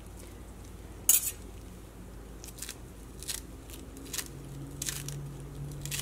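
Knife cutting fresh coriander leaves and stems against the thumb, over a steel bowl: a string of short, crisp snips at an uneven pace, with a sharper click about a second in.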